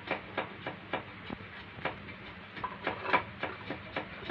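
Irregular sharp wet clicks, about three a second, from a puppy and its mother dog mouthing and licking at each other as they play.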